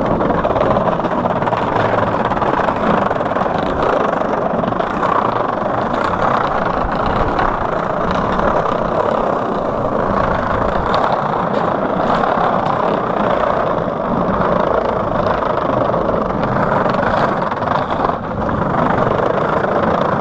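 Skateboard wheels rolling over wooden boardwalk planks: a loud, steady rumble with no break.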